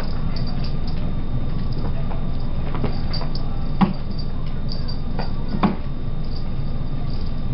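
A cat's paws and claws tapping and scuffing on a hardwood floor as it spins in fast circles, with two sharp knocks about four and six seconds in. A steady low hum runs underneath.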